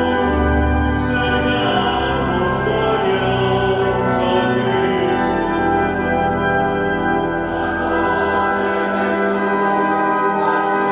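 Church choir singing a hymn with Walcker pipe organ accompaniment, the organ holding full chords with deep pedal bass notes in the first few seconds.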